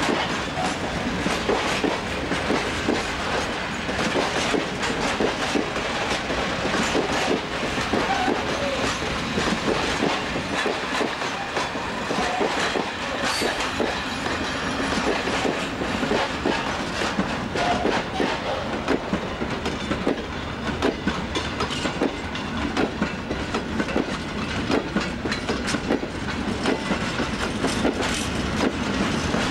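Freight train wagons rolling past: a steady clatter of steel wheels over the rail joints, with many short clicks and knocks throughout.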